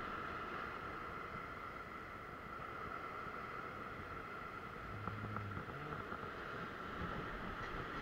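Sea swell surging and foaming against shoreline rocks: a steady rushing wash of surf.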